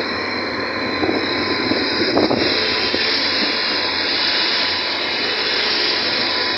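Steady rushing noise of a moving vehicle, with a brief louder knock about two seconds in.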